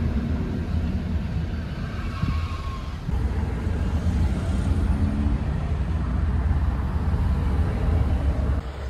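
Road noise inside a moving car: a steady low rumble of engine and tyres, a little louder after a cut about three seconds in.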